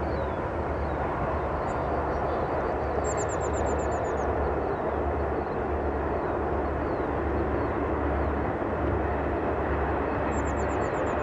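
Union Pacific diesel freight train rumbling steadily as it runs past, with a low engine throb underneath. A bird gives a short high trill twice, a few seconds in and near the end.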